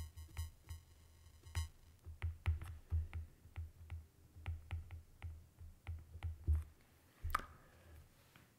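Stylus tip tapping and clicking on a tablet's glass screen while handwriting, irregular sharp ticks about three or four a second, each with a dull low thump. An electrical buzz runs under the first second and a half, and one louder click comes near the end.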